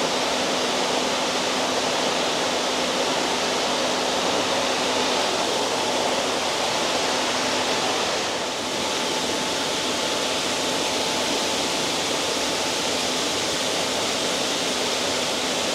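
Steady rush of running water in koi ponds, with a faint steady hum underneath.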